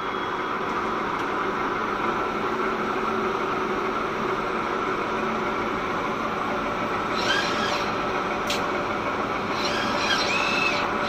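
HTMT TRM 30-ton spline rolling machine running with a steady mechanical noise, joined twice by a high-pitched squeal, about seven and ten seconds in, and a single sharp click between them.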